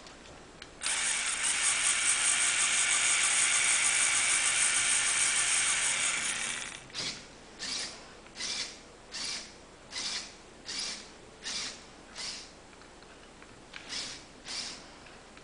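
Plastic gears of a Lego Technic truck model running with a fast ratcheting rattle for about six seconds. This is followed by a string of short rattling bursts, about one every three-quarters of a second, and two more near the end.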